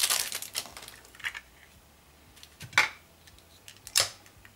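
Clear hard-plastic pen case being handled and opened, giving a few sharp plastic clicks and taps. The loudest click comes near the three-second mark and another about a second later. Before them, the crinkle of the cellophane wrap dies away.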